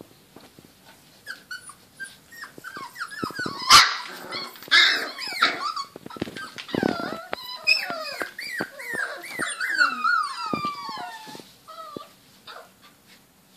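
Four-week-old Border Collie puppies playing: a chorus of high yips, whines and squeals that fall in pitch, with a sharp bark about four seconds in and a low growl about seven seconds in. The squealing is busiest from about seven to eleven seconds in and tails off near the end, with light clicks and scrabbling throughout.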